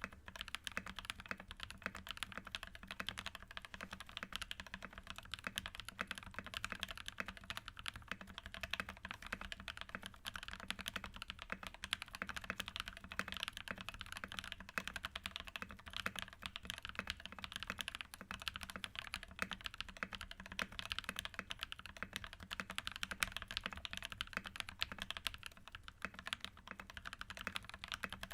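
Continuous fast typing on a mechanical keyboard with JWK linear switches lubed with 205g0, under MT3 PBT keycaps on an aluminium plate: a dense, steady stream of keystroke clacks.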